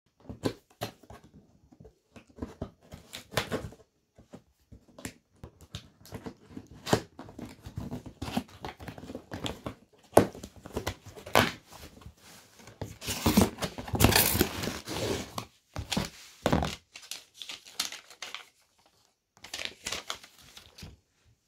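A cardboard shipping box being slit open with a pocket knife and torn apart by hand: scraping and crackling of tape and cardboard, with short knocks as the box is handled. About two-thirds of the way through comes a longer, louder rip of cardboard.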